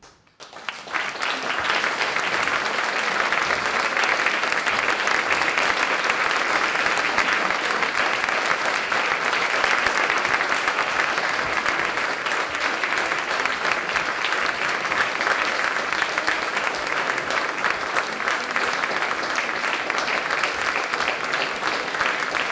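Audience applause breaking out after a hush at the end of a performance: it starts about half a second in, swells within a second and keeps up steadily.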